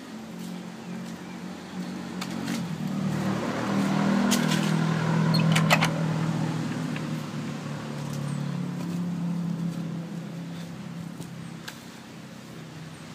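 A motor vehicle passing: a low engine hum grows louder to a peak about five or six seconds in, then fades away, with a few sharp clicks near the loudest point.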